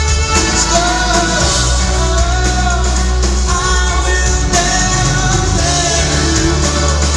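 A rock band playing live: a man singing a melody over drums, electric guitar and a heavy bass line.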